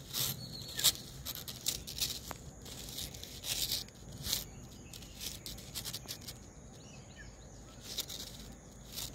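Light, irregular scratching and rustling as kittens paw and claw at a dry stalk and the wall: short scrapes every half second to second, quieter in the middle.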